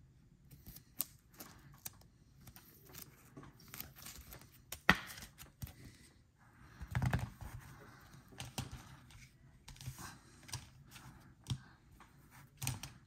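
Trading cards and a clear plastic card holder being handled on a tabletop: scattered light clicks and rustles as a card is slid into the holder and cards are set down, with a sharper click about five seconds in.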